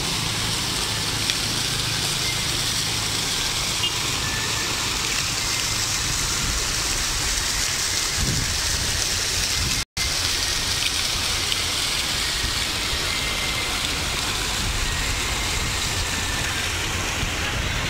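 Fountain jets splashing steadily into the pool, a continuous rushing patter of falling water, broken by a split-second dropout about ten seconds in.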